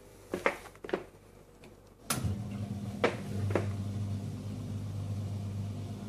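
Dishwasher starting up: a few clicks, then about two seconds in another click and its motor begins a steady low hum that keeps running, with two more clicks over it.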